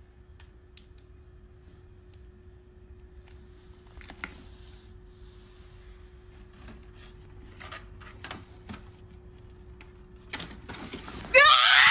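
Paper and plastic bags crinkling and rustling softly as a hand rummages through a plastic-lined bin, over a faint steady hum. Near the end comes a sudden loud, high-pitched cry that sweeps up and down in pitch.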